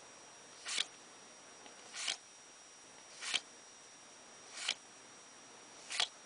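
Trading cards being slid one at a time off a stack in the hands: five short swishes, evenly spaced a little over a second apart.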